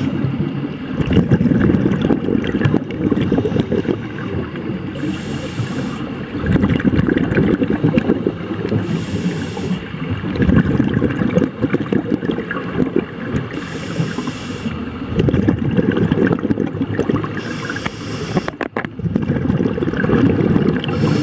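A scuba diver breathing through a regulator underwater. About every four seconds there is a short hiss of inhalation, followed each time by a longer low bubbling rumble of exhaled bubbles.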